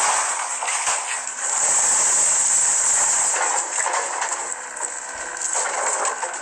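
Excavator demolishing a wooden house: a dense hiss of crunching and splintering with many sharp cracks, and debris clattering down.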